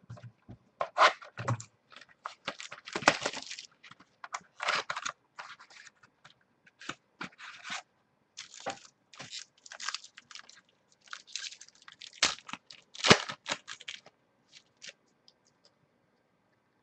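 Foil wrapper of a baseball card pack being torn open and crinkled, in a long run of irregular crackling rustles, with the sharpest crackle about thirteen seconds in.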